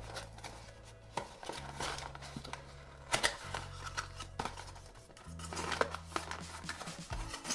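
A small cardboard blind box being torn open by hand: sharp crackling and ripping of the sealed card top, with the flaps creaking as they are pulled apart.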